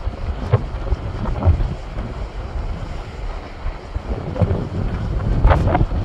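Sea surf breaking and washing over shoreline rocks: a steady low rumble that swells unevenly, with a couple of sharper splashing rushes about half a second in and near the end. Wind buffets the microphone throughout.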